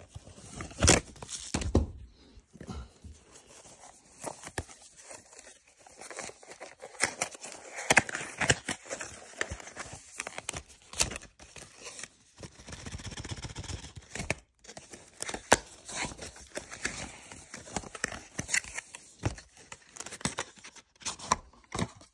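Hands handling a cardboard watch box and paper packaging: irregular rustling and crinkling with scattered clicks and knocks, two sharp knocks about a second in, as the box is opened.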